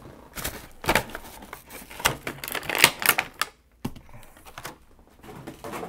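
Crinkly plastic miniature wrappers rustling and plastic figures clicking as they are handled and set down on a table: a run of irregular sharp clicks and crackles.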